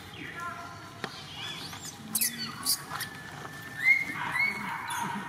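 Baby monkey calling in a run of high-pitched squeaks and cries: a downward glide near the start, a note held for over a second in the middle, and two short rising-and-falling squeals near the end, with a few sharp shrill peaks in between.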